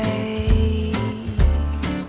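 Background music: an upbeat guitar-backed song with bass and drum beats about once a second.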